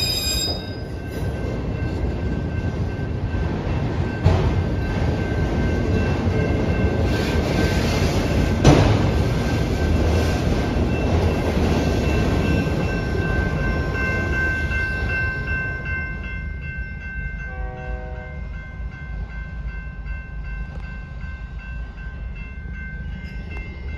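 A train rolling past on the rails: a steady rumble with thin, high ringing tones over it. It grows quieter over the last third, with a short pitched tone about three-quarters of the way through.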